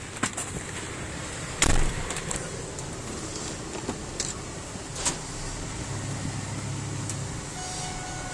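Someone getting into the cab of a 2003 Ford Sport Trac pickup: rustling and handling noise, one loud thump a couple of seconds in, and a few sharp clicks. Near the end a steady tone comes on.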